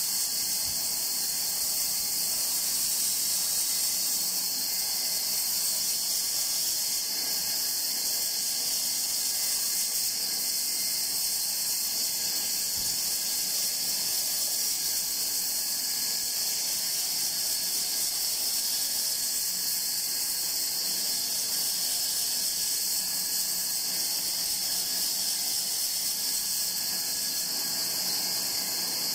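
Band saw running with its blade cutting a curve through a block of rosewood: a steady, continuous hiss.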